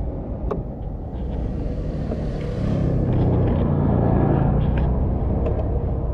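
Motorbike engine running at road speed with road rumble and wind noise; the engine hum grows louder about three seconds in.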